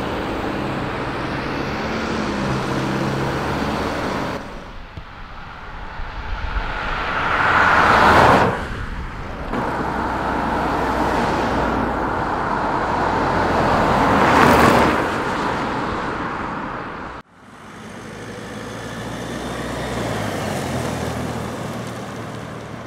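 Camouflaged Mercedes GLA prototype driving along a snow-covered road, its engine running and tyre noise swelling to a peak as it passes, twice, about eight and fourteen seconds in. The sound breaks off suddenly about seventeen seconds in and builds again as another pass begins.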